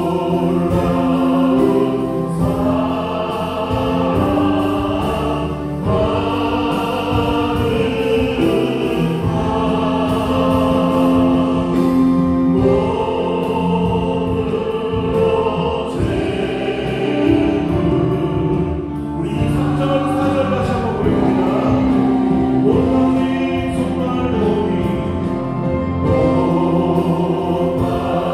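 Congregational choir singing a Korean hymn in sustained phrases, accompanied by a worship band of Yamaha Montage 8 synthesizer keyboard, bass guitar and drums.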